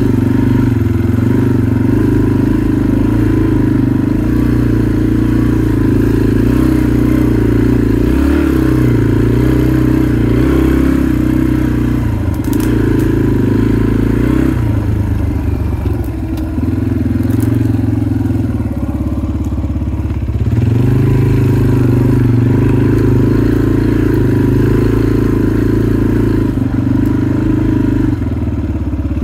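Motorcycle engine running at low trail speed, its note rising and falling as the throttle is opened and closed, easing off briefly around the middle before picking up again.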